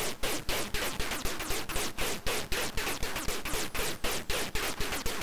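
Homemade XORbell CMOS metallic-noise percussion circuit on a breadboard, sounding with its power unplugged because one chip is miswired to ground and running super hot. It gives a harsh hiss broken by rapid, uneven ticks, about six a second.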